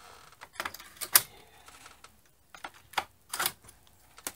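Plastic needle butts and needles clicking on an LK150 plastic-bed knitting machine as they are pushed along the bed with a needle pusher: a handful of sharp clicks at irregular intervals, the loudest about a second in.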